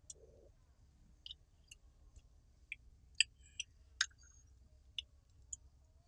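About ten short, sharp clicks at irregular intervals, a knife tip tapping and picking at a snail shell.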